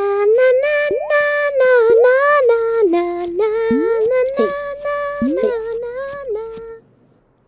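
A high cartoon voice singing a cheerful wordless tune, held notes joined by quick pitch slides, breaking off shortly before the end.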